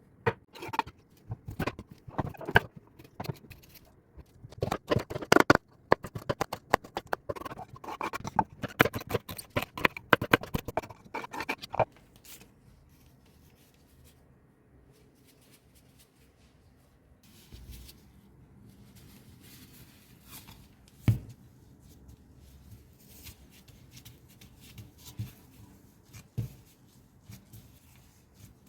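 Kitchen food-preparation handling: a rapid run of scraping and clicking for about twelve seconds, then quieter handling with a single knock.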